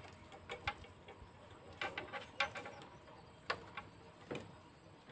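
Faint, irregular clicks and taps, about ten in all, from wire connectors being handled and pushed onto a motorcycle horn's terminal.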